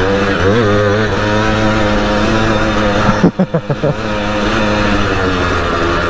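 Simson moped's single-cylinder two-stroke engine running steadily under way. About three seconds in, its revs flutter sharply up and down several times in quick succession before settling again.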